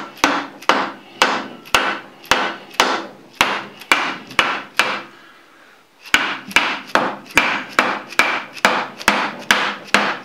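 Orange plastic-faced mallet tapping the cast-iron top of a Bridgeport rotary table, each blow ringing briefly. The blows come about two a second, stop for a moment about five seconds in, then pick up slightly quicker. The tapping is seating the rotating table down onto its ways in the base.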